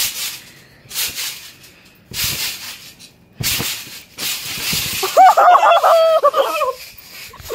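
A trampoline bounced on in a run of rhythmic whooshing bounces about a second apart as the jumper builds height for a flip. About five seconds in, excited wordless yelling and cheering comes in after he lands the flip.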